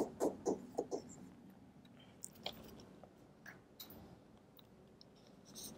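Stylus tapping and scratching on a drawing tablet while a word is handwritten: a quick run of soft clicks in the first second, then a few faint scattered ticks.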